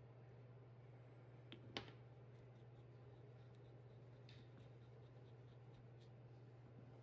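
Near silence with a steady low hum, broken by a couple of faint clicks a little under two seconds in and a few fainter ticks later, as the raw sand-cast brass plane bodies are handled.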